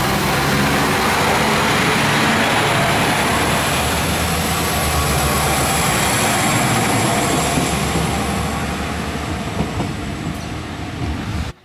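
Alstom Coradia LINT diesel railcar passing close by: a steady rumble of its engine and wheels on the rails, with a high thin whine above it, easing off slightly in the last few seconds.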